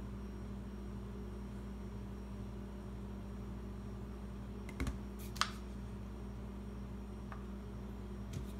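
A few light clicks and taps from a canvas and plastic cups being handled on a tabletop, bunched about five seconds in and once more near the end, over a steady low hum.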